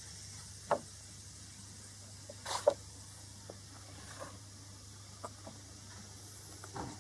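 A few sharp clicks and knocks, the loudest a short cluster about two and a half seconds in, over a faint steady low hum.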